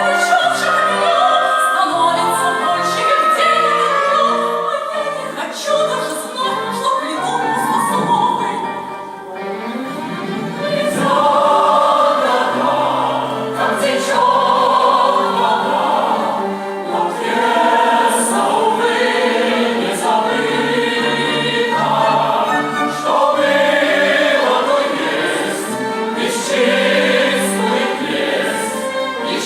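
Music: a choir singing in a classical, operatic style with orchestral accompaniment.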